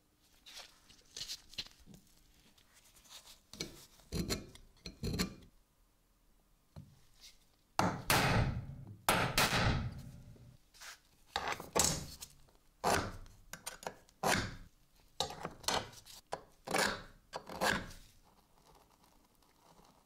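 Steel scriber and marking gauge scratching a centre line into a sandblasted metal plate: a series of short scraping strokes about a second apart, with heavier scrapes and knocks about eight seconds in.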